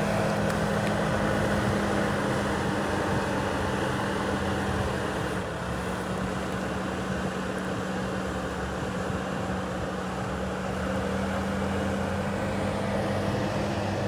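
Engine of a farm machine running steadily, its pitch dipping slightly about five seconds in.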